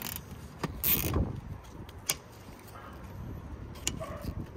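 Heavy-duty nylon cable tie being pulled tight, a short ratcheting rasp about a second in. A few sharp clicks follow as the tie and cutters are handled.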